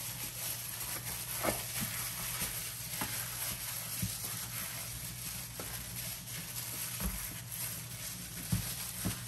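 Plastic-gloved hand rubbing olive oil and wet seasoning over a raw whole chicken: a soft, wet rubbing and smearing with scattered light taps.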